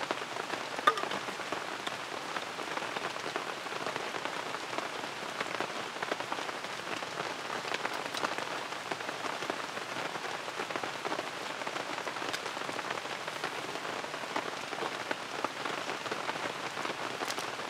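Steady rain falling on a tarp overhead, the noise of the rain dotted with many small drop ticks. One sharp tap stands out about a second in.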